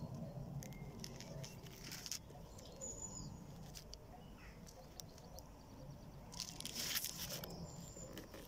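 Faint outdoor background with leaves rustling in short bursts, and a longer, louder rustle about seven seconds in.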